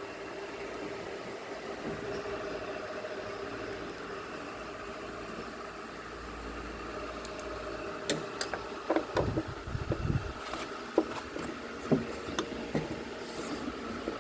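A steady background hum, then from about eight seconds in a scatter of sharp metallic clicks and knocks as Allen-type nuts are worked loose from a washing machine tub with a hand tool.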